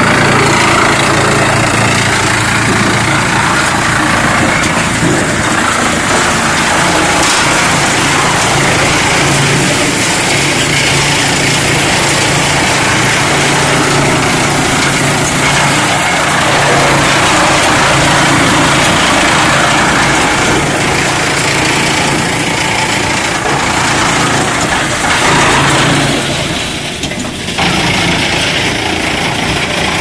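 Drum wood chipper running and chipping scrap wood slabs: a loud, steady machine noise over a low hum, with a brief dip in loudness near the end.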